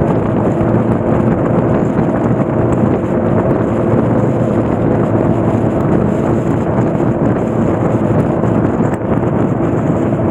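Motorcycle engine running at a steady speed while riding, its steady hum under wind rushing over the microphone.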